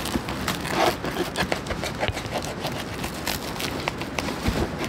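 Crisp toasted bread crunching as it is bitten and chewed, a quick irregular run of crackles.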